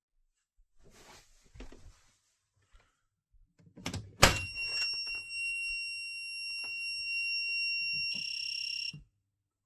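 A sharp click, then a fire alarm panel's internal buzzer sounds a steady, high electronic tone over a low mains hum. Near the end the tone turns to a rapid pulsing for about a second, then cuts off.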